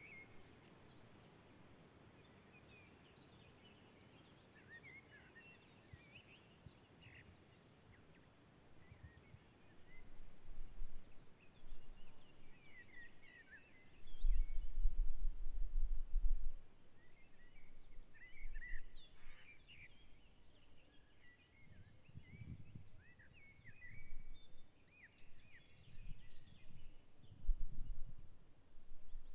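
Steady high insect chirring, crickets, with scattered short chirps above it. Gusts of wind buffet the microphone as low rumbles, the strongest about halfway through.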